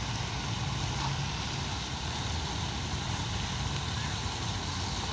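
Steady low rumble of distant road traffic, even and unbroken.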